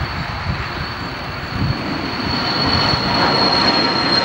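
Cessna Citation 560 XLS business jet's twin turbofans at takeoff power as it lifts off and climbs past: a rush of jet noise with a steady high-pitched whine. The noise grows louder about three seconds in as the jet comes closer, and the whine drops slightly in pitch near the end.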